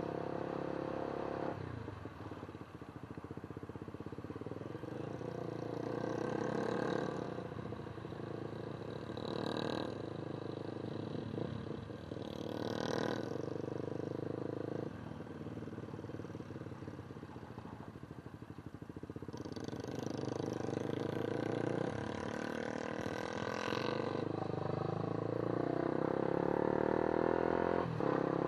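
Motorcycle engine running under way, its note shifting several times and gliding in pitch near the end.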